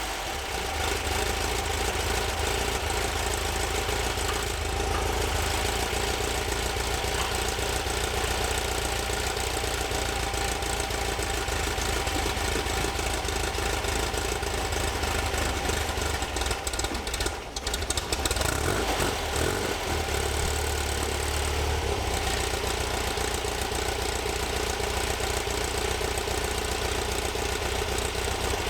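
The freshly installed engine of a 1964 Volkswagen Bus idling steadily, with a brief dip in level about 17 seconds in.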